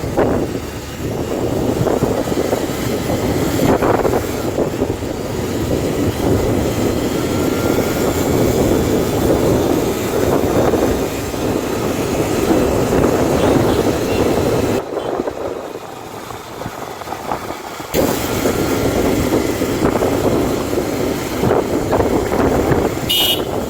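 Wind rushing over the microphone and running noise of a Yamaha R15 V3 motorcycle on the move. The noise drops away for a few seconds just past the middle.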